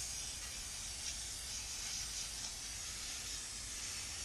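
Aerosol can of brake parts cleaner spraying onto a disc brake caliper in one long, steady hiss.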